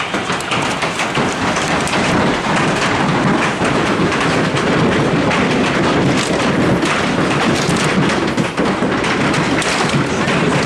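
Heavy hailstorm with large hailstones, golf-ball size and bigger, pelting down hard. It makes a loud, steady din of countless sharp impacts.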